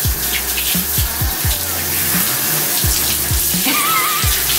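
Handheld shower head spraying water over a dog's wet coat in a bathtub: a steady hiss of running water. Background music with a steady beat plays along.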